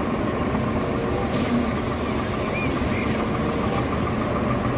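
Nissan Diesel concrete mixer truck's diesel engine running steadily with a deep rumble. A short hiss, like an air-brake release, comes about a second and a half in.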